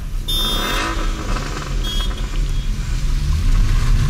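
Toyota 86's flat-four engine heard from inside the cabin while driving, over tyre noise on a wet road. A brief high-pitched chirp comes about half a second in, and the engine note rises and grows louder past the three-second mark as the car accelerates.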